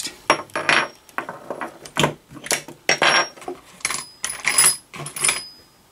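Metal hand tools clinking against each other as they are rummaged through in a toolbox tray: a quick string of sharp clinks, some with a brief metallic ring.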